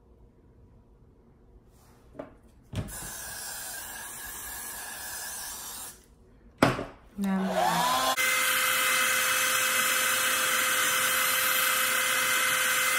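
A handheld hair dryer is switched on with a click and spins up, then blows loud and steady from about eight seconds in. It is drying freshly applied Got2b glue and freeze spray on a wig cap. Before the click there is a few seconds of quieter steady hissing.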